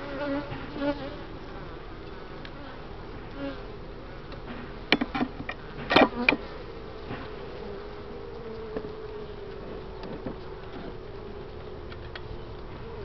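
Honeybees buzzing around an opened hive, one bee humming steadily close to the microphone. A few sharp knocks come about five to six seconds in, the loudest near the six-second mark.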